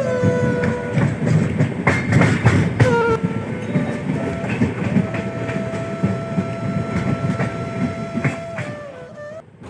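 A train running on the rails with a rumbling clatter, under long held train-horn blasts whose pitch drops a few times. The sound fades near the end.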